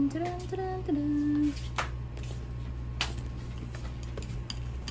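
A woman hums a few short notes, then two sharp clicks as the bag's sling strap is handled and fitted, over a steady low electrical hum.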